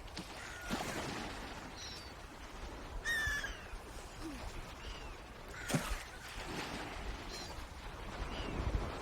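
Swans calling: short, high, down-slurred calls repeat about once a second, with one louder, fuller call about three seconds in and a brief noisy burst a little before six seconds.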